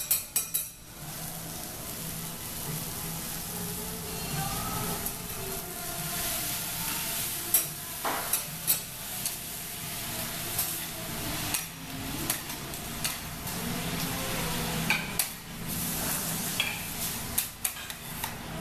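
Food sizzling on a teppanyaki steel griddle while metal spatulas scrape and tap against the hot plate, giving frequent sharp clicks over the steady sizzle.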